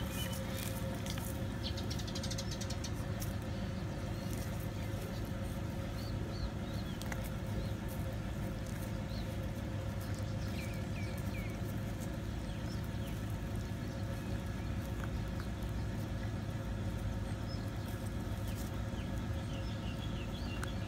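A steady low mechanical hum, like an engine running, holds at an even level throughout. Faint short high chirps and a few small clicks are scattered over it.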